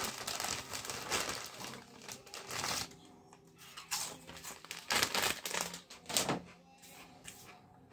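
A chip bag crinkling as it is handled: a dense run of crackling and clicks for about three seconds, then a few separate crackles.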